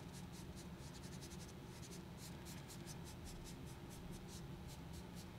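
A PanPastel sponge applicator rubbing pastel into paper in quick, faint, uneven strokes while blending the colour into a smooth transition.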